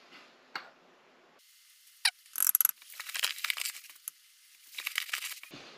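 All-purpose flour poured from a stainless measuring cup into a ceramic ramekin, the cup clinking and scraping against the rim. There is a sharp click about two seconds in, then several bursts of soft scratchy rustling as the flour slides out.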